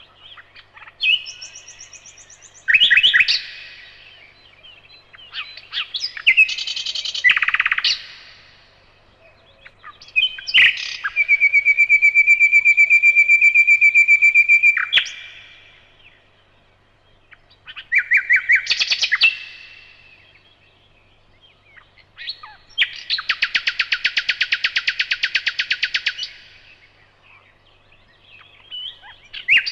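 Nightingale singing in separate phrases of a few seconds with short pauses between them. Some phrases are a long, rapid run of repeated piping notes; others are a fast, dense rattle.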